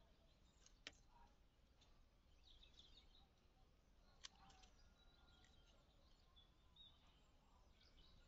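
Near silence, broken by two faint snips of hand pruning shears cutting through blackberry canes, about a second in and about four seconds in. Faint bird chirps in the background.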